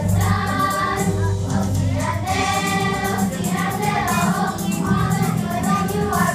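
Elementary school children's choir singing together, with sustained sung phrases.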